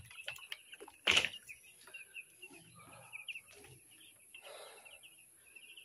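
A brood of chicks peeping continuously, many short high chirps overlapping, with one sharp knock about a second in.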